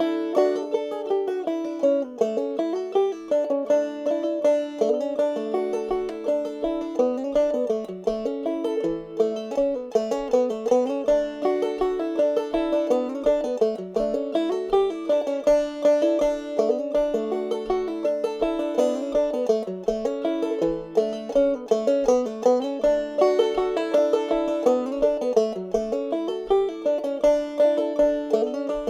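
Clawhammer banjo in double D tuning playing a fast fiddle tune, with a continuous run of plucked notes over a steady pulse. From about six seconds in, a soft low thump falls on each beat.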